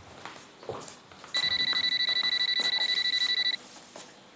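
Telephone ringing: a rapid electronic trill on a steady pitch, one ring about two seconds long starting about a second and a half in, part of a repeating ring that is soon answered. A couple of faint knocks sound before and after the ring.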